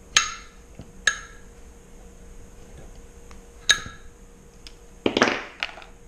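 Metal hand tools clinking: three sharp single clinks, then a short clatter about five seconds in, as wrenches and pliers are handled and set down on a wooden workbench while the cotter pin is pulled from the wheel's axle nut.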